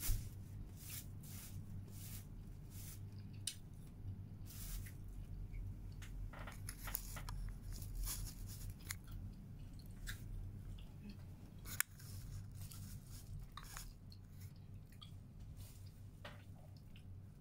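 Eating by hand close to the microphone: irregular soft clicks, crinkles and chewing as food is picked up and eaten off a plastic sheet, with one sharp tick about twelve seconds in. A steady low hum runs underneath.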